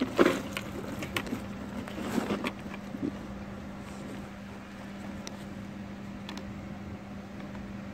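A few light knocks and clicks of parts being handled in the first three seconds, then only a steady low hum.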